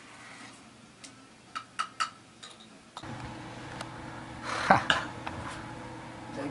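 A spoon clinking lightly several times against a mug while stirring a hot drink. At about three seconds the background turns to a steady low hum, with one louder brief noise a second and a half later.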